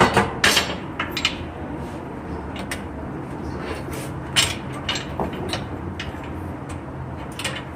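Scattered metal clinks and knocks of tools and exhaust parts being handled during a motorcycle exhaust swap, loudest right at the start, over a steady low hum.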